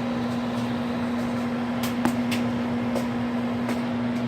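Microwave oven running with a steady low hum, with a few light clicks about halfway through.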